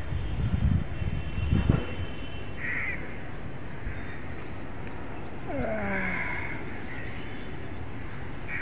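Crows cawing: a few short calls spread through, about three seconds in, around six seconds and again at the end, over a steady open-air background.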